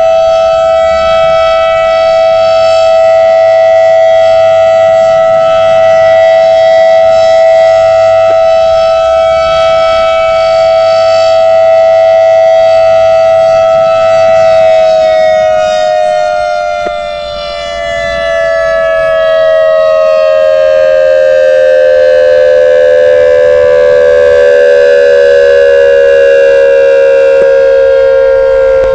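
ACA Alertronic 6000R electronic tornado siren sounding a loud, steady tone for about the first half. It then slides slowly and smoothly lower in pitch, fading briefly about two-thirds of the way in before coming back up.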